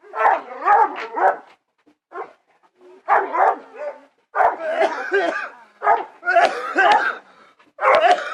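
Dog barking in about six separate bouts.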